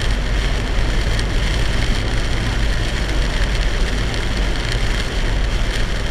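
Torrential rain pounding on a moving car, with steady tyre and road rumble, heard from inside the cabin.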